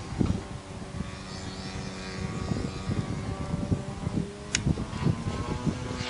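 DLE 55cc single-cylinder two-stroke gasoline engine of a 30% Sbach 300 RC aerobatic plane, turning a 23x8 wooden propeller, running steadily in flight overhead. A short high tick sounds about four and a half seconds in.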